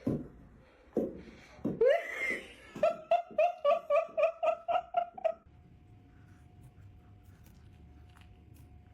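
High-pitched laughter: a few short voiced sounds, then a rapid run of about ten rhythmic "ha" pulses that stops about five seconds in. After it, only a faint steady tone remains.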